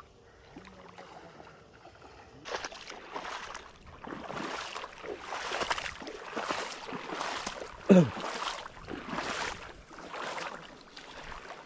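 Shallow water splashing and sloshing in repeated swells around a wading angler's legs. About eight seconds in, a brief falling vocal cry is the loudest sound.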